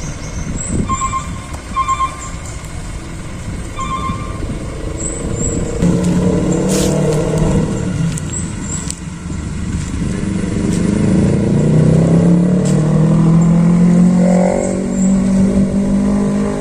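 Dump truck engine running hard and revving under load. It rises in pitch from about six seconds in, and again more strongly from about ten seconds.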